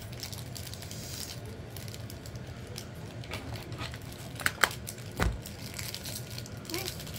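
Crinkling of plastic packaging and holographic nail foil being handled, with a few sharp clicks and one dull thump about five seconds in.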